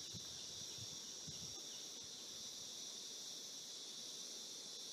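Faint, steady, high-pitched chorus of insects, with a few soft low thumps in the first second and a half.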